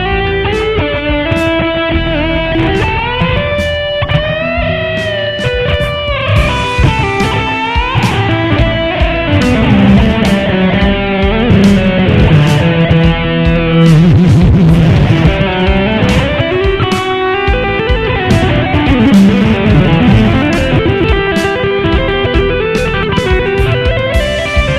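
Electric guitar played through a Mooer GE150 multi-effects unit: lead lines of picked notes with string bends and vibrato, including a long low wavering note about halfway through. A steady ticking beat runs about twice a second underneath.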